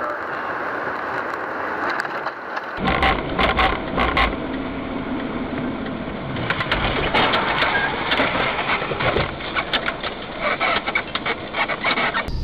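Car noise recorded on a dash cam: a steady rush, then from about three seconds in a louder, rougher stretch full of crunching and scraping knocks.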